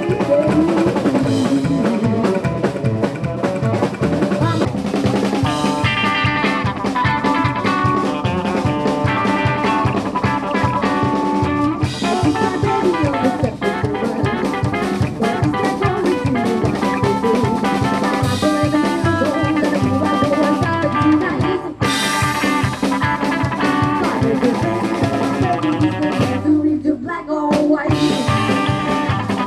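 Live rockabilly band playing with a steady beat: drum kit, upright double bass and hollow-body electric guitar. The drums and cymbals drop out for a moment near the end.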